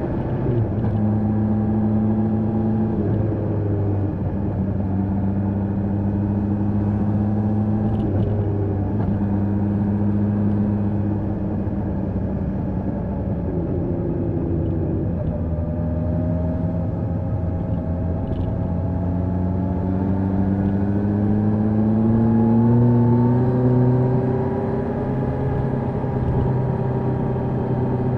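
Kawasaki H2 SX SE's supercharged inline-four running through an Akrapovic exhaust while riding, heard from the bike itself. The engine pitch mostly holds steady with a few shifts, climbs slowly in a long pull about two-thirds of the way through, then drops back.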